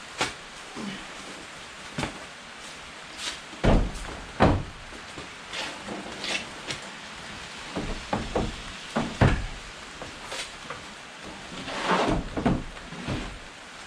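Steady rain hiss with a string of irregular thumps and knocks, the heaviest about four seconds in and again around nine seconds.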